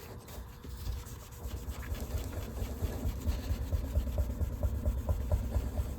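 Fine-grit polishing compound being rubbed in quick back-and-forth strokes over a super glue drop-fill repair in a guitar's finish. This is the polishing stage after wet sanding. The strokes grow steadier and a little louder after about two seconds.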